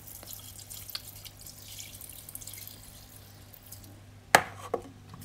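Rinse water trickling and dripping as it is poured off glutinous rice in a tilted stainless steel pot. A single sharp knock comes a little over four seconds in, with a lighter one just after.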